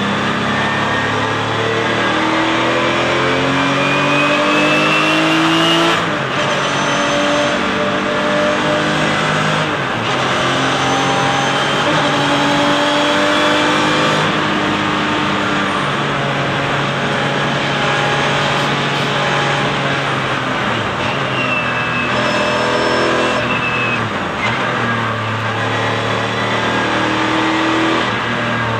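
Porsche 996 Cup car's flat-six engine heard from inside the cockpit at racing speed. The pitch climbs and drops back at each upshift, about six, ten and fourteen seconds in, runs high and steady, then falls away a little before twenty-four seconds and climbs again, with steady road and wind noise underneath.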